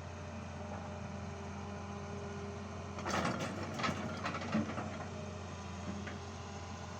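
Excavator diesel engine running steadily, with a short burst of clattering knocks about three seconds in.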